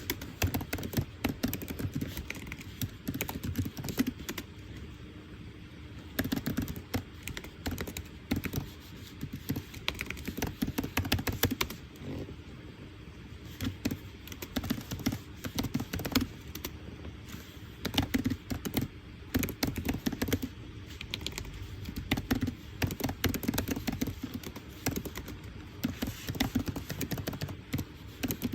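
Typing on a computer keyboard: bursts of rapid key clicks with short pauses between them, over a faint steady hum.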